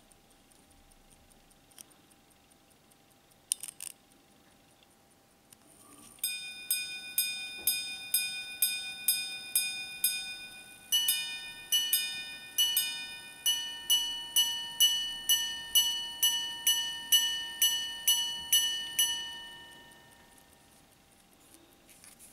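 Minute repeater wristwatch with a recased pocket-watch movement, chiming the time on its gongs. From about a quarter of the way in, a run of evenly spaced strikes on the low gong marks the hours. Then, from about halfway, faster alternating strikes on both gongs mark the quarters and minutes, and the last tone rings out and fades.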